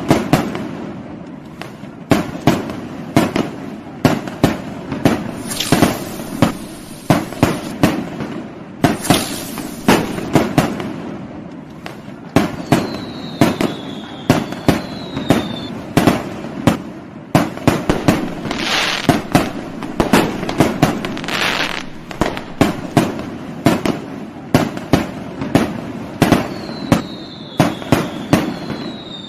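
Fireworks going off: a continuous string of sharp bangs and pops, several a second, with a few brief fizzing hisses. Twice, a pair of short falling whistles sounds over the bangs.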